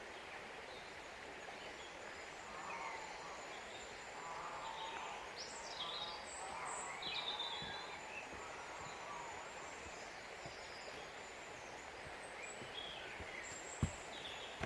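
Woodland birds singing and calling: scattered short chirps and whistles from several birds over a steady background hiss, with a single knock near the end.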